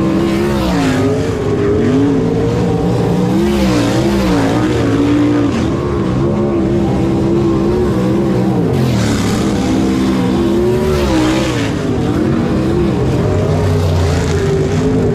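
Several non-wing sprint cars running on a dirt oval, their engines rising and falling in pitch as they go through the turns. A louder rush comes as cars pass close, about nine and again about eleven seconds in.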